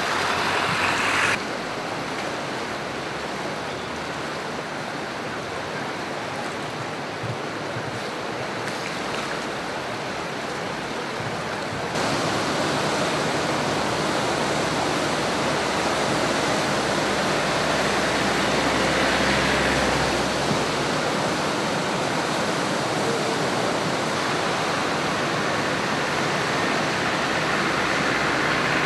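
Floodwater of the swollen Drina river rushing past: a steady, even noise of fast-moving water. It changes abruptly about a second in and grows louder about twelve seconds in.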